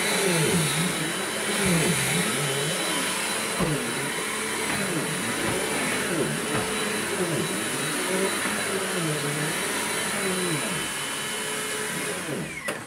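Corded upright vacuum cleaner running steadily, its motor tone dipping and rising over and over as it is pushed across the floor. It is switched off just before the end and winds down with a brief falling whine.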